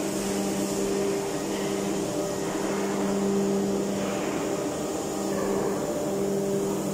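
Steady drone of a ship's engine-room machinery: a constant hum with a few steady low tones over a broad hiss, with no breaks.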